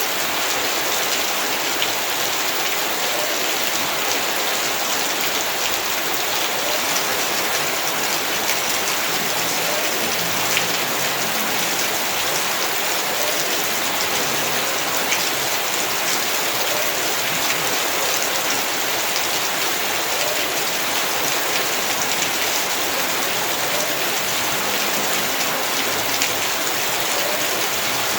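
Heavy rain falling steadily, a dense even hiss of drops with many fine splashes and patters striking surfaces.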